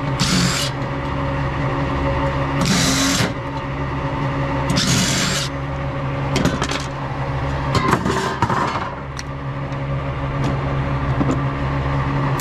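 Hand-tool work on a large network printer's metal chassis being taken apart for scrap: three short hissing bursts in the first half, then clusters of metallic clicks and knocks. A steady low machine drone runs underneath.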